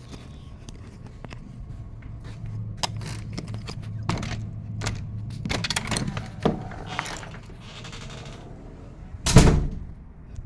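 A series of short clicks and knocks over a low steady hum, with a hiss about seven seconds in and one loud thump about nine seconds in.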